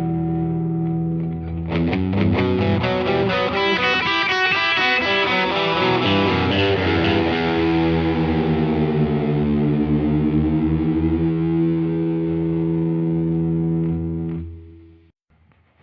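Overdriven 1996 Fender American Stratocaster with high-output noiseless pickups, played through a Blues Senior combo into a Universal Audio OX Box factory delay preset. A held chord gives way to a run of picked notes with delay repeats trailing behind, then a sustained chord whose pitch sags and comes back up. The chord is cut off about a second before the end, leaving near silence.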